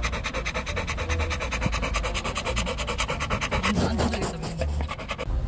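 Asian small-clawed otter panting fast and evenly, about ten breaths a second, stopping a little past halfway.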